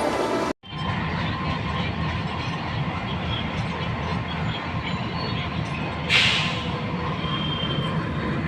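Diesel locomotive running with a steady low rumble, and a short hiss about six seconds in.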